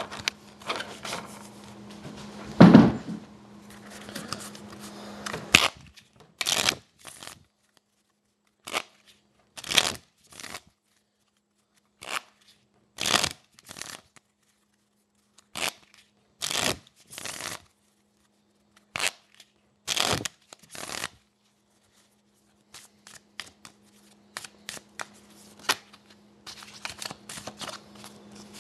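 A deck of playing cards being shuffled by hand: a series of short rustling strokes with gaps between them, quicker near the end. A knock about three seconds in is the loudest sound.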